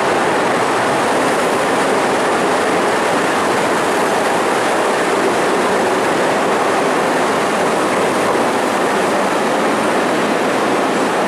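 CTA 2600-series 'L' train pulling out of an elevated station, its wheels and motors making a steady, loud noise on the track as it moves away.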